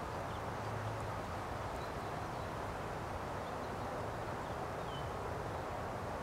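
Steady outdoor background noise with a low hum underneath, and a few faint high chirps now and then.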